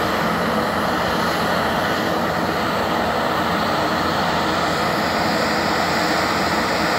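Engine of a remote-controlled tracked crawler tug running steadily under load as it moves a house.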